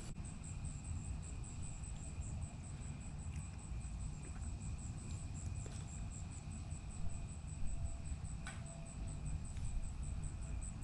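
Night insects chirping steadily: one very high, rapidly pulsing chirp and a lower continuous trill, over a steady low rumble.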